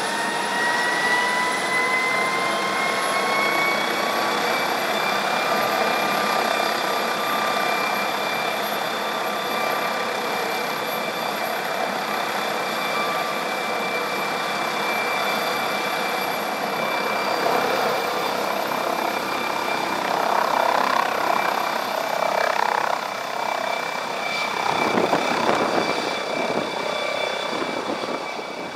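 MD Explorer NOTAR helicopter's turbine engines whining, the pitch rising over the first few seconds as they spool up, then holding steady while it sits on the ground. About twenty seconds in, the rotor noise grows louder and uneven as the helicopter lifts off and climbs.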